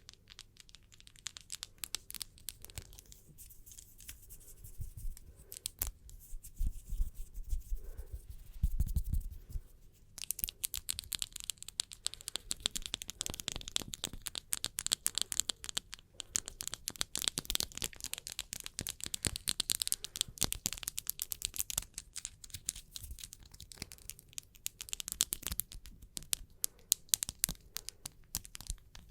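Close-miked ASMR hand rubbing and fingernail tapping: dense, rapid, crackly scratching strokes. The sounds are sparser with a few soft low thumps in the first third, then become a thick, steady crackle from about a third of the way in.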